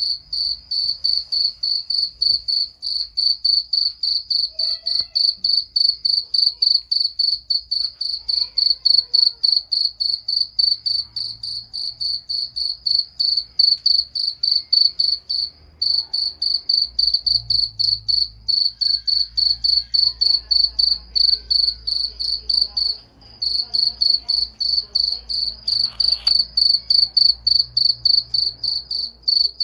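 A cricket chirping: a quick, even run of short, high-pitched chirps at one steady pitch, pausing briefly a few times.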